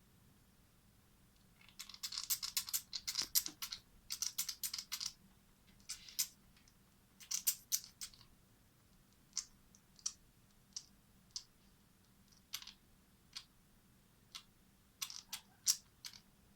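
Wet mouth smacking and chomping: a dense run of quick smacks for about three seconds, a few more groups, then single smacks spaced a second or so apart.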